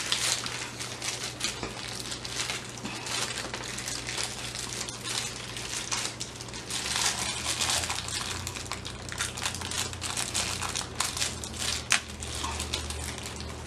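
Crinkling of thin clear plastic packaging as hands unwrap a small plastic toy accessory, a continuous run of fine crackles with one sharper click near the end.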